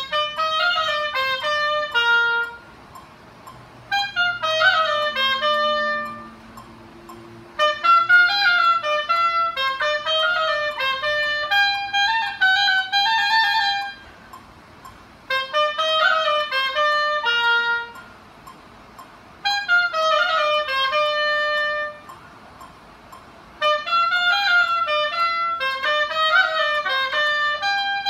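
Solo oboe playing quick melodic phrases, about six of them, each a few seconds long, with pauses of a second or two between.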